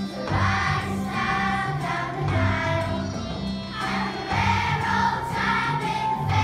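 A group of young children singing together over musical accompaniment with a steady bass line.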